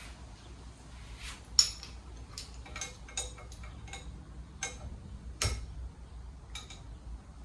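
Scattered clicks and light metallic clinks of metal tools and parts being handled, with one sharper knock about one and a half seconds in.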